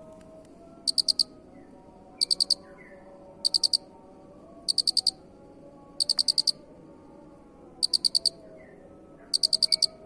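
Cricket chirping in a steady rhythm: seven high-pitched chirps, each a quick train of four to six pulses, repeating about every second and a quarter over a faint background.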